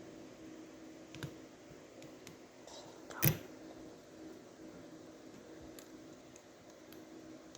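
Plastic model kit parts being handled and fitted: a few faint clicks and one sharper click about three seconds in, over a faint steady hum.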